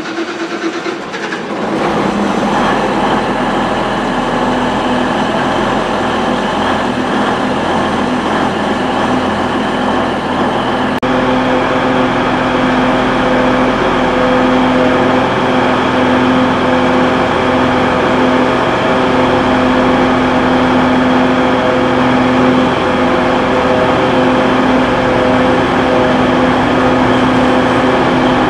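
Diesel multiple-unit train heard from inside the carriage: the engine builds up over the first couple of seconds, then holds a steady drone under power with rolling noise from the wheels.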